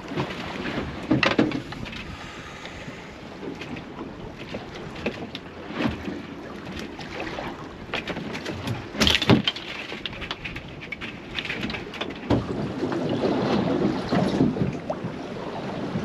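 Water slapping and sloshing against a small boat's hull, with wind on the microphone and a few irregular knocks, the loudest about nine seconds in.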